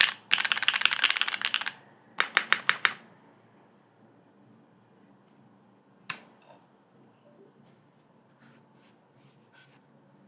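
Fast typing on a Keycult No. 2/65 custom mechanical keyboard with lubed linear switches (Cherry MX Black housings, NK Cream stems) on an aluminum plate. A short burst of about six quick keystrokes follows, then the typing stops. Later come a single sharp click about six seconds in and a few faint ticks.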